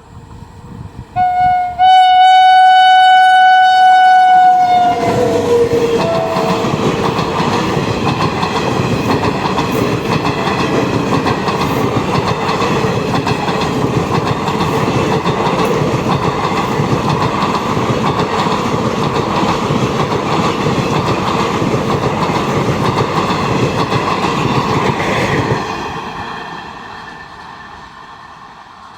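Indian Railways train sounding its horn loudly for about four seconds, the pitch dropping as it passes, then the train running past at speed with a steady rush of wheels on rails that fades away near the end.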